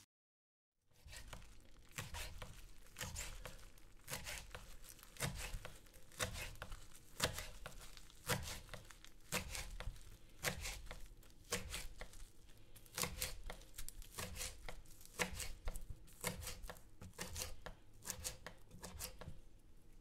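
Chef's knife chopping fresh parsley on a wooden cutting board: a long run of quick knife strikes against the board, several a second, beginning after about a second of silence and thinning out near the end.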